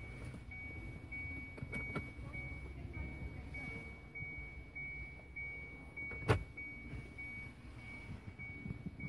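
A car's interior warning chime beeping, one high tone repeating evenly, with a single sharp knock about six seconds in.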